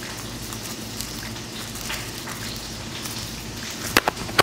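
Garlic butter sizzling in a frying pan on a stove: a steady hiss. Two sharp clicks come near the end.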